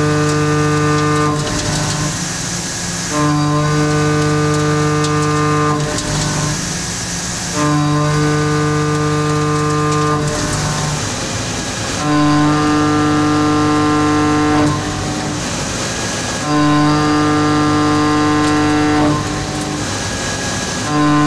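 Kennametal 7792 high-feed shell mill, a 4-inch cutter with 16 mm inserts, plunge milling steel in a Doosan NHM 6300 horizontal CNC mill. Each plunge gives a steady humming cutting tone lasting about two and a half seconds, and it repeats about every four and a half seconds, five times, with a hiss in the pauses between plunges as the tool retracts and steps over.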